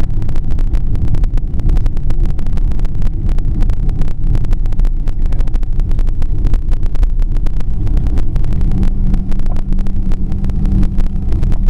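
Cabin noise of a Boeing jet airliner rolling out on the runway after touchdown: a loud, continuous low rumble from the engines and wheels, with rapid crackling. A steady low hum joins about eight and a half seconds in.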